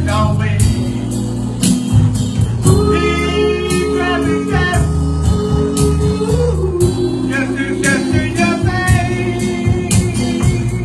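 Gospel band playing: bass, a steady drum beat and guitar, with a man singing long held notes.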